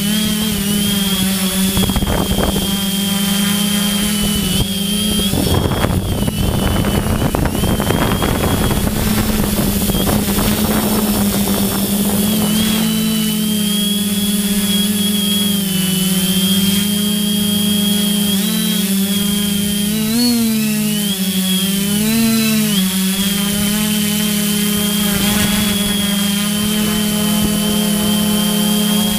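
FPV drone's electric motors and propellers running steadily, heard from the onboard camera, a steady whine with a noisy rush of air for a few seconds about five seconds in. Near the end the pitch dips and climbs back a few times as the throttle changes.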